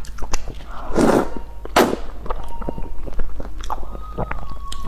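Instant noodles slurped with chopsticks: two loud slurps about one and two seconds in, then wet chewing and lip-smacking clicks close to the microphone.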